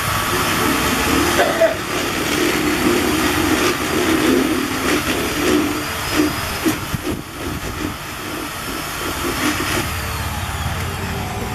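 Power drill spinning a paddle-type scraper on a long shaft inside a hollowed pumpkin, churning out the pulp and seeds. The motor's pitch wavers as the paddle meets the flesh, with scattered knocks.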